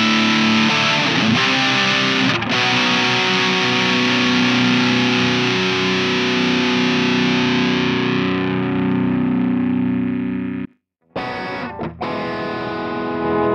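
Electric guitar with heavy distortion, played through a Line 6 UX2 interface and GearBox amp modelling: held chords ring out, with a chord change about two seconds in. Near eleven seconds the sound cuts out briefly as the amp model is switched, then strummed chords start again with a duller tone.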